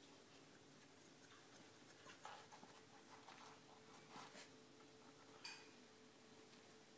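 Near silence with a faint steady hum, broken by a few faint, short scratchy rustles of young Staffordshire terrier puppies crawling over a blanket and cardboard, about two to five seconds in.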